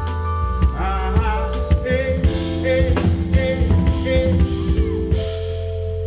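Live band music: a drum kit played over held chords, with a wavering melody line above.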